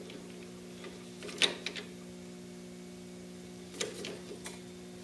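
A few light metal clicks and clinks as the aluminium part is turned over and re-clamped in the lathe chuck with the chuck key, over a steady low hum. The clicks come in a small cluster about a second and a half in and again near the end.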